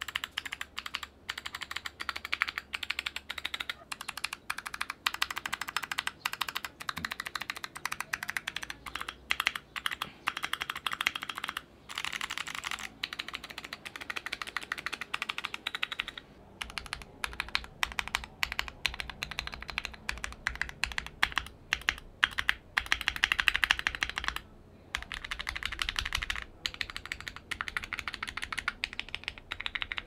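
Typing on a Keychron Q1 mechanical keyboard with a polycarbonate plate, fitted with clicky Chosfox & Kailh BOX Arctic Fox click-bar switches: a fast, continuous stream of sharp clicks with brief pauses. About halfway through, the typing switches to Kailh BOX White v1 click-bar switches.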